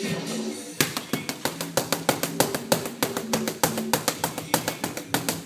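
Punches landing on focus mitts: a fast run of sharp smacks, several a second, starting about a second in, over background music.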